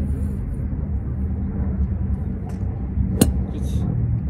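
Golf driver striking a ball once, a sharp crack about three seconds in, over a steady low rumble.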